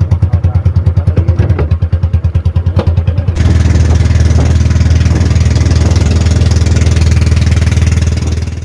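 Outrigger fishing boat's engine running with a low, even thud of about eight beats a second, then throttled up about three seconds in to a louder, faster steady run.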